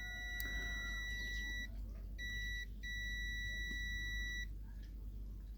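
A digital multimeter's continuity beep, a steady high tone, sounding as its probes touch ground points on a speaker's circuit board. It signals a connection to ground. The beep breaks off nearly two seconds in, comes again briefly, then sounds once more until about four and a half seconds in.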